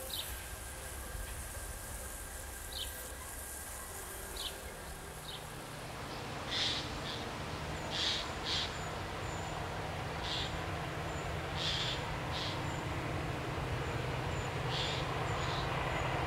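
Short bird chirps over a high insect hiss. About five seconds in, a low steady diesel engine drone takes over and slowly grows louder as an LDH diesel-hydraulic locomotive approaches from afar, with repeated short bird calls above it.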